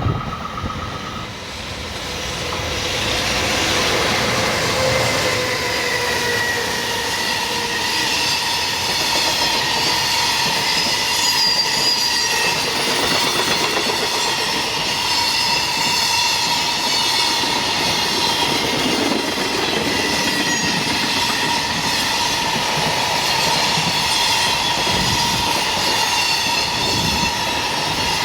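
Long freight train passing close by: the sound builds over the first few seconds, then holds steady as the wagons roll past, wheels clattering over the rail joints with a steady high-pitched squeal running through it.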